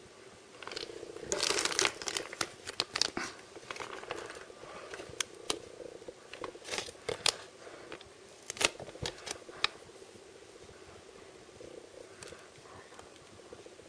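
Blind-bag packaging being crinkled and torn open by hand: a run of crackles and sharp snaps that goes quiet after about ten seconds.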